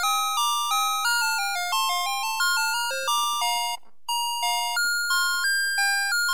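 Electronic tune from the Navystar Press 'N Go toy fire truck's sound chip: bright beeping notes about three a second, each fading quickly, stepping up and down in pitch. There is a short break about four seconds in before the notes resume.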